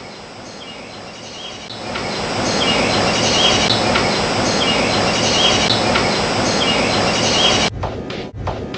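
Loud, even outdoor rushing noise, amplified, that swells about two seconds in, with faint short high chirps recurring about once a second. It cuts off abruptly near the end, leaving a few sharp clicks.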